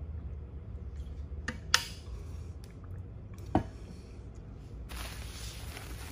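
A few sharp clicks, then from about five seconds in, plastic bubble wrap crinkling as it is handled, over a low steady hum.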